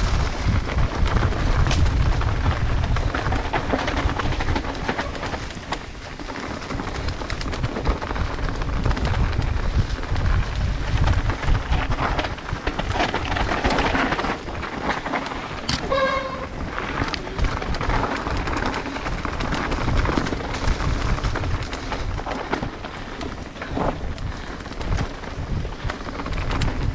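Mountain bike riding down a dry dirt singletrack: tyres rolling over fallen leaves and dirt, the bike rattling over bumps, and a steady low wind rumble on the ride camera's microphone. A brief squeal sounds about halfway through.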